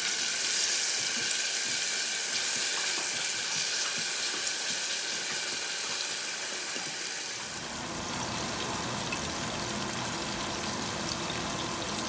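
Onions and tomatoes sizzling in oil in a stainless steel pot while being stirred with a spatula. The sizzle thins and grows quieter about seven seconds in.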